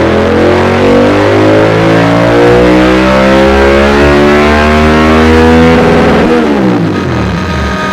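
Honda VTR 1000 F's 90-degree V-twin through a Dominator aftermarket exhaust, its revs climbing steadily under load in a dyno pull. About six seconds in the throttle closes and the revs fall quickly.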